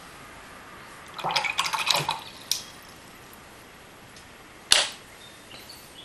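A short run of small clinks and taps from watercolour painting tools being handled, then one sharp, loud click near the end.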